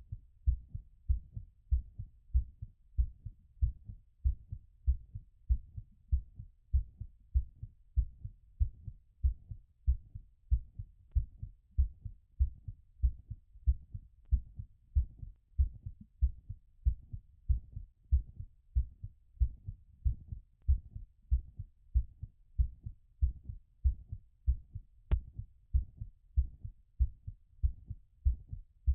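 Human heartbeat heard through a stethoscope during recovery after exercise: a steady, regular lub-dub of low thumps.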